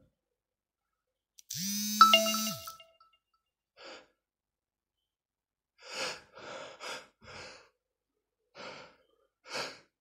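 A man lets out one drawn-out voiced sigh about a second and a half in. From about six seconds in comes a run of short, breathy gasps, his breath catching as a sneeze builds.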